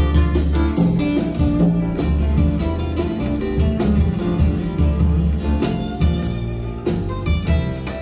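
Recorded music with plucked strings over deep bass notes, played back through Cessaro Horn Acoustics Opus+ horn loudspeakers with Opus subwoofers.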